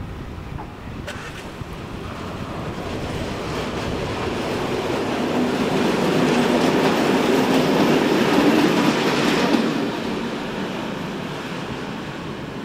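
Two coupled diesel locomotives running light, without wagons, passing close by: engine sound and wheels on the rails growing louder, loudest from about six to nine and a half seconds in, then fading as they move away.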